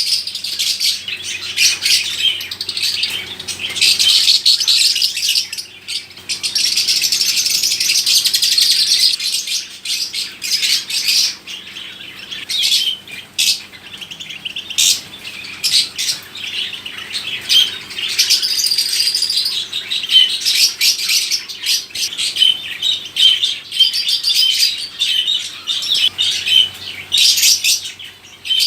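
Many caged birds chirping and chattering at once in a dense, continuous chorus of short high calls, with a faint steady hum underneath.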